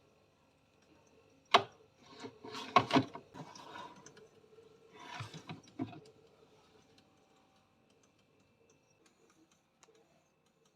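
Objects being handled: a sharp knock about 1.5 s in, a cluster of knocks and clatter around 3 s, another burst of clatter ending in a knock about 6 s in, then only faint ticks.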